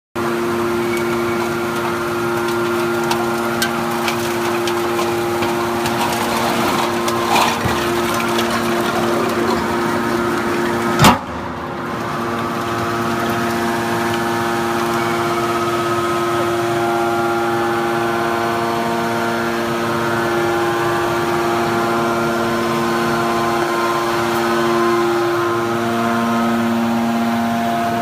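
Enerpat heavy-duty scrap metal baler running: the hydraulic power unit gives a steady, loud mechanical hum with two fixed tones. A few light metallic knocks come in the first several seconds, and one sharp bang about 11 seconds in.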